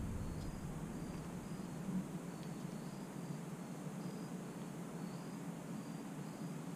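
Insects chirping: short, high chirps, about two a second, over a faint steady low hum.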